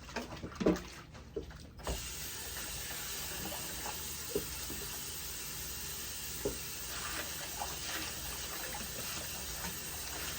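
A few handling knocks, then about two seconds in a tap is turned on and water runs steadily as a wig is rinsed under it.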